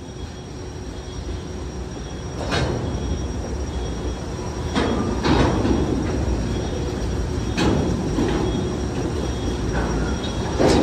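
Freight train's centerbeam lumber flatcars rolling past: a steady low rumble, with the wheels knocking over the crossing's rail joints in pairs every two to three seconds, and a faint high squeal underneath.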